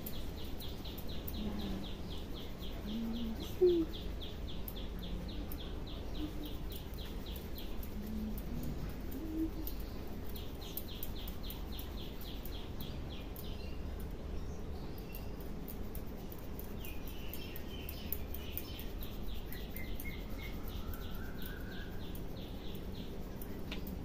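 Head massage with hair cracking: faint crackling clicks of hair being pulled and snapped. Behind it a bird chirps in fast, even runs of about four chirps a second, three runs of several seconds each.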